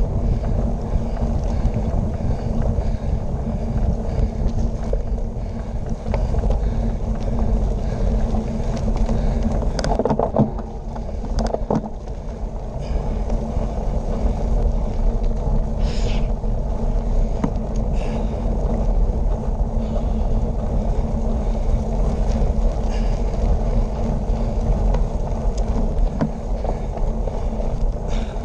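Wind rushing over a bicycle handlebar camera's microphone, with the tyres rumbling on the pavement. A few brief knocks come through near the middle.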